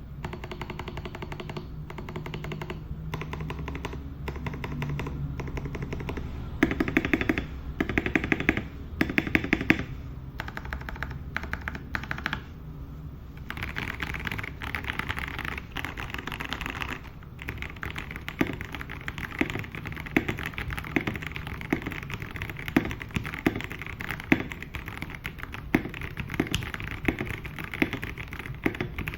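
Keydous NJ81 mechanical keyboard with Kailh Box Brown tactile switches on a brass plate being typed on. There are rapid clattering runs of keystrokes with a few loud fast bursts, a brief pause about 13 seconds in, then steadier separate keystrokes.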